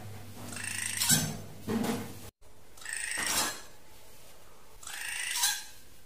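Drongo calling: four harsh calls in a few seconds, with a brief cut to silence between the second and third.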